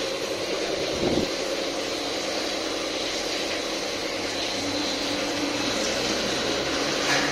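Steady mechanical background noise, a hum with hiss, with one brief low knock about a second in.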